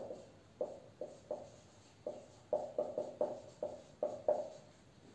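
Felt-tip marker knocking on a whiteboard as letters are written. About a dozen short knocks, each with a brief ring, come at an uneven pace and stop shortly before the end.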